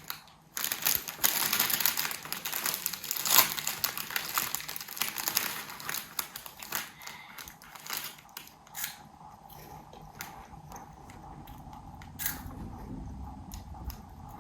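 Food packaging crinkling and rustling as it is handled and opened, dense for the first several seconds, then giving way to sparser clicks and small crunches.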